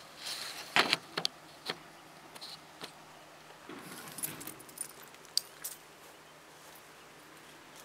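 Keys jangling, heard as scattered light clicks and jingles with a brief cluster of jingling about halfway through; no engine is running.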